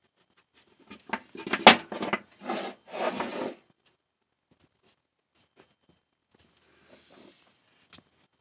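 Handling noise from a hose and its metal elbow fitting: a cluster of rubbing and knocking sounds between about one and three and a half seconds in, with a sharp knock among them, then a single sharp click near the end as the metal fitting is set down on a plywood bench.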